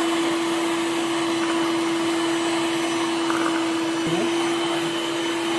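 Electric hand mixer running steadily at one constant speed, its beaters whirring through thick butter-cake batter in a stainless steel bowl, with a steady motor hum of unchanging pitch.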